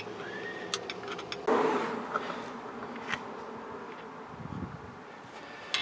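Light clicks of metal distributor parts being handled and set down on a towel, a few single ticks, with a buzzing like a passing insect.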